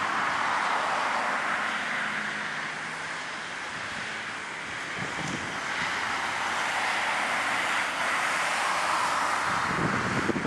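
Airbus A340-300's four jet engines heard from across the airfield as a steady, loud rushing noise while the airliner runs at high power on a wet runway. Low rumbling buffets of wind on the microphone come in about halfway through and again near the end.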